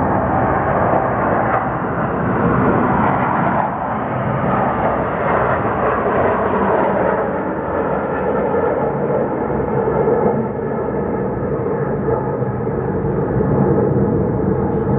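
Loud, steady engine drone with humming tones running through it; the sound shifts lower and smoother about eight seconds in.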